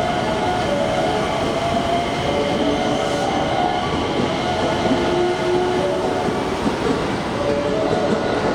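Electric commuter train moving through the station, a steady running noise of wheels on rails with short tones coming and going throughout.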